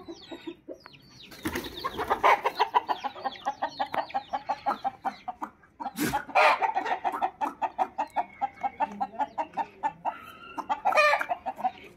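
Country chickens clucking in long runs of short, quick calls, about four or five a second. There is a sharp click about six seconds in and a louder call near the end.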